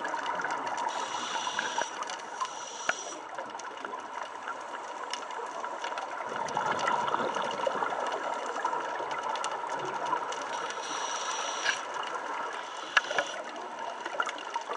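Scuba breathing heard underwater through a regulator: a hiss of inhaling twice, with a bubbly exhale swelling in between. Fine crackling and clicking runs throughout.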